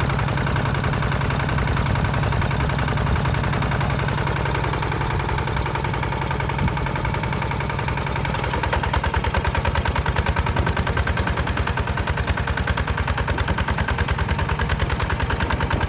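Single-cylinder diesel engine of a HINOTA HG Gold 155 DI two-wheel walking tractor running with a rapid, even chugging. About eight seconds in the beat turns sharper and a little louder as the tractor pulls a disc plow through dry soil.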